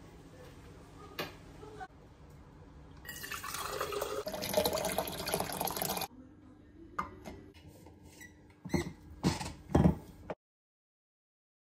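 Water poured from a plastic jug into a stainless steel tumbler, a splashing, filling rush lasting about three seconds, followed by a few sharp knocks and clunks as the tumbler is handled.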